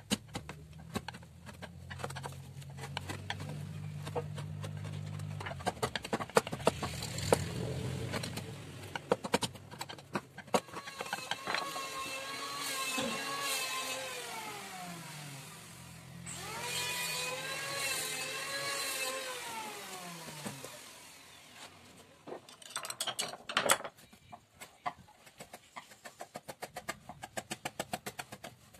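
Hand chisel cutting into a carved wooden panel: a run of sharp clicks and taps as chips come away, with a cluster of louder taps near the end. Behind it an engine hums, and twice in the middle a whine rises in level and then falls in pitch.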